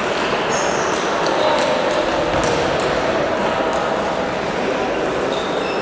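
Table tennis balls clicking off bats and tables in irregular sharp pings during rallies, over a steady background of voices and hall noise.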